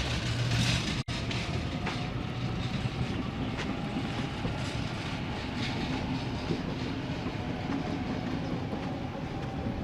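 Train running on the rails, a steady rumble with a few faint wheel clicks.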